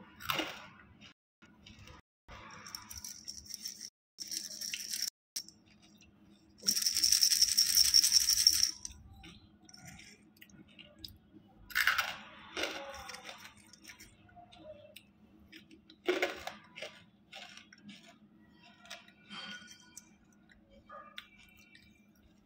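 Banslochan (tabasheer, hard bamboo crystals) crunching and crackling as it is bitten and chewed, with small hard pieces clicking and rattling against a plastic bowl. A louder dense rattle lasts about two seconds a few seconds in.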